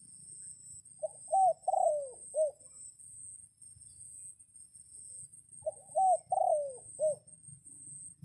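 A dove cooing two phrases about four seconds apart, each of four coos with one longer falling note, over a steady high-pitched background buzz.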